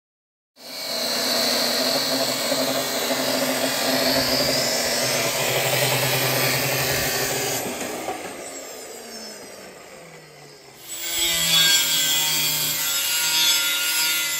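Angle grinder cutting steel bar, running loud for about seven seconds and then winding down with a falling pitch. About eleven seconds in, a second cut starts abruptly and runs to the end.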